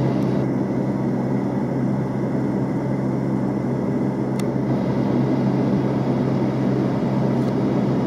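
Car engine idling with a steady low hum, heard from inside the parked car, with one faint click about four seconds in.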